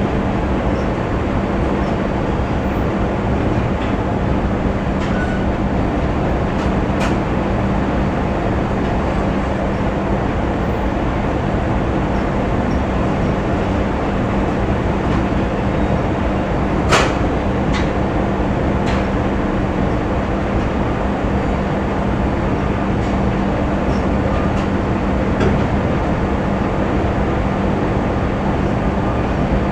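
Factory ambience: a steady machinery rumble with a constant low hum. A few sharp knocks stand out through it, the loudest about seventeen seconds in.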